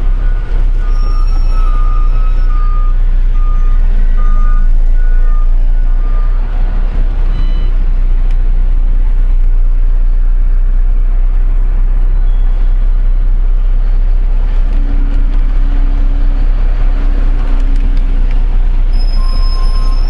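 MAN truck's diesel engine running steadily, heard from inside the cab during a reversing manoeuvre, with a low drone throughout. Repeated reverse-warning beeps sound over the first several seconds.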